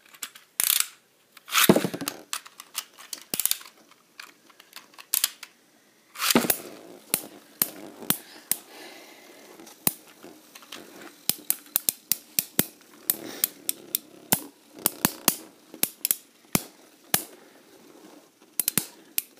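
Two metal-wheeled Beyblade spinning tops clattering in a plastic stadium bowl: a few loud knocks near the start and about six seconds in, then a long run of sharp clicks as the tops collide and scrape against each other and the stadium wall.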